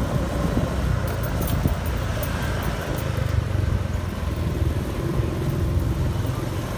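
Street traffic heard from a moving vehicle: a steady low rumble of engines and road noise.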